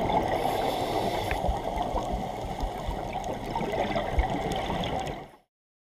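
Underwater rush and gurgle of scuba divers' exhaled bubbles rising from their regulators, heard from below the surface. It cuts off suddenly near the end.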